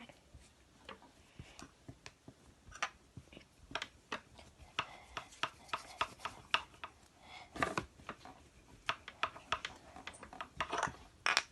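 Irregular light taps and clicks with some rubbing: hands working and pressing Play-Doh on a tabletop, with a slightly heavier knock about two-thirds of the way through.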